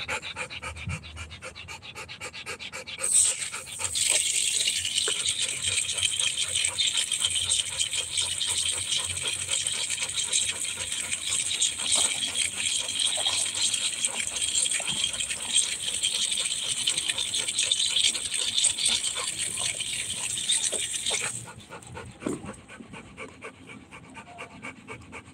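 Water running steadily, turned on about three seconds in and shut off abruptly about twenty-one seconds in, as a dog's rubber ball is washed. A Rottweiler pants close by.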